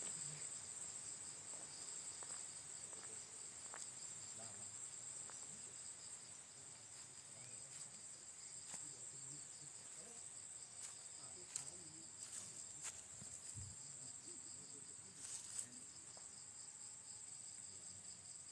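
Insects chirring steadily at a high pitch, with a second, pulsing trill a little lower, and a few short faint clicks in the second half.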